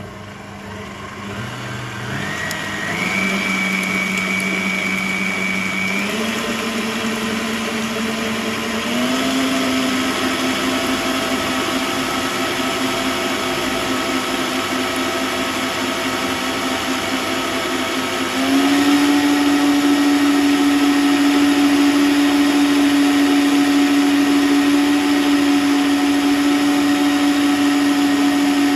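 Electric stand mixer running its wire balloon whisk through raw eggs to foam them. The motor's whine steps up in pitch and grows louder several times as the speed is turned up, the biggest jump coming about two-thirds of the way through.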